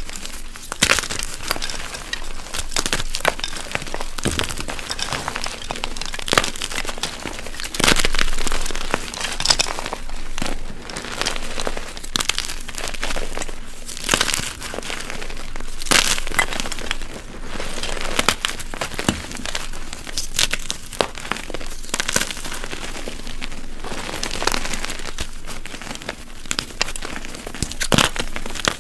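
Blocks of dyed gym chalk being crushed: dense, crunchy crumbling and crackling, with sharp cracks every few seconds as pieces break.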